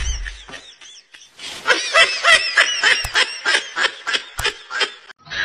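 Laughter track: laughing in quick repeated bursts. It fades out at the start, pauses for about a second, then starts again about one and a half seconds in and stops just before the end.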